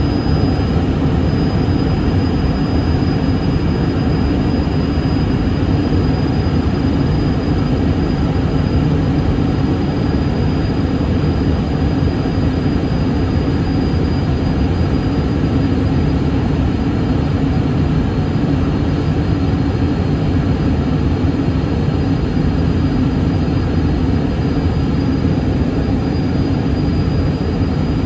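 Steady cabin noise inside a Yakovlev Yak-40 airliner: a constant low rumble from its three rear-mounted Ivchenko AI-25 turbofan engines, with a faint steady high whine.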